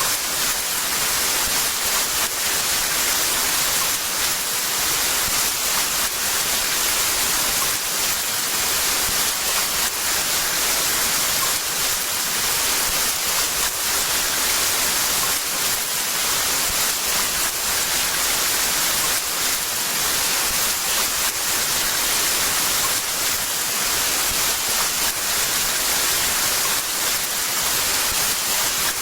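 Heavy rain falling, a steady, dense hiss without let-up.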